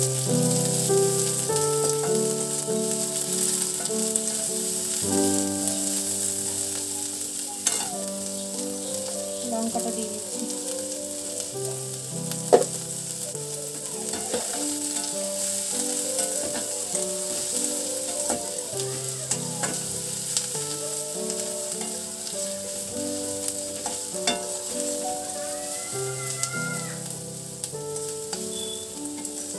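Sliced onions and nigella seeds sizzling in hot oil in a steel kadai, stirred with a metal spatula that now and then clicks against the pan, once sharply about twelve seconds in. Instrumental background music with a repeating pattern plays throughout.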